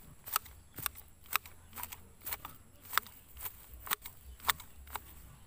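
Hand shears snipping through grass, a crisp click with each cut, about two cuts a second in a steady rhythm.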